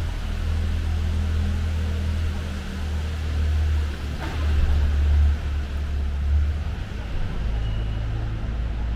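A small van's engine running with a low rumble as it drives slowly past through an underground concrete parking garage. It is loudest as it passes, about five seconds in, with one short click just before.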